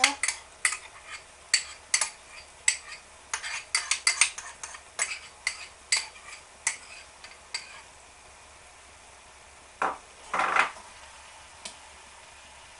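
Wooden spoon stirring a thick curry in a frying pan, knocking and clicking against the pan in a quick, irregular run for the first eight seconds or so, then two louder scrapes about ten seconds in.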